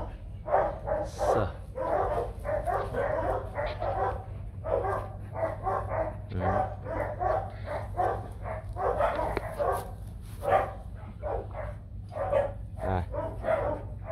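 Dogs barking repeatedly, several short barks a second, over a steady low hum.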